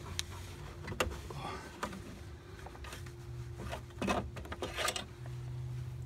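Shop rag rubbing over a push mower's plastic engine shroud, with a few handling clicks and scrapes, over a steady low hum.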